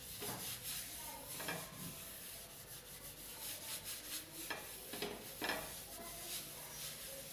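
Paper tissue wiping oil off a hot iron tawa: a quiet, irregular rubbing with a few louder strokes.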